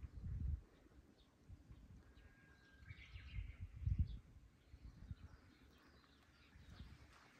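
Quiet outdoor ambience with faint scattered bird chirps, including a short call about two to three seconds in, and a few low rumbling bursts, the strongest about four seconds in.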